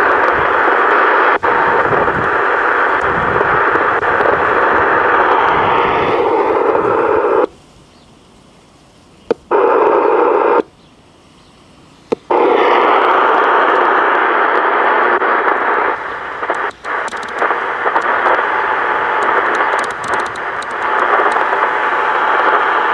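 Static hiss from the Johnson Messenger 130A CB radio's speaker while it receives no stations: the bands are dead. The hiss cuts out twice near the middle, each time for a second or two.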